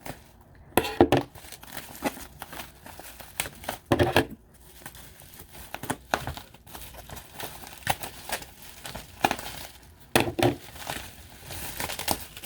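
Packaging wrapped around a crystal being crinkled and torn as it is unwrapped by hand, in irregular rustles with a few louder bursts of crumpling.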